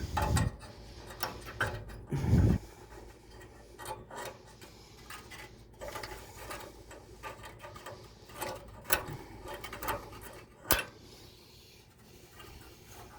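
Irregular scraping and small clicks of a makeshift tool rubbing dirt off a wall gas furnace's pilot assembly, with a duller handling thump about two seconds in and a sharp click later. The part is being cleaned because the pilot light will not stay lit.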